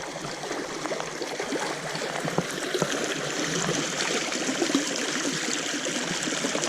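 Small stream running and burbling steadily close by, with the small irregular splashes of moving water.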